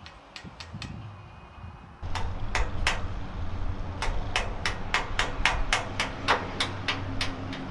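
Hammer striking a stuck steel pin in the spokes of a Ferris wheel, trying to drive it out. First come a few light taps, then three harder blows, then a run of about a dozen strikes at roughly three a second.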